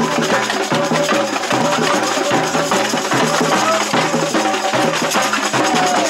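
Samba percussion band (bateria) playing a steady, driving samba rhythm: deep bass drums pulsing in a repeating pattern under dense, busy higher percussion.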